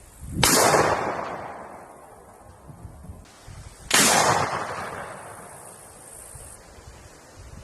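Two single gunshots about three and a half seconds apart, each a sharp crack followed by a long echoing decay.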